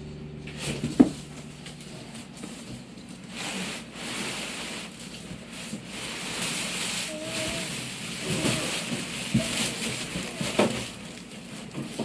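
A cardboard refrigerator carton being opened and lifted off. Cardboard rubs and scrapes and plastic wrap rustles, with a few sharp knocks, the loudest about a second in.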